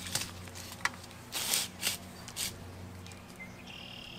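Rope and climbing gear being handled against a tree trunk: a few short scrapes and clicks as a lineman's rope is passed around the bark and clipped, over a low steady hum. A short high tone sounds near the end.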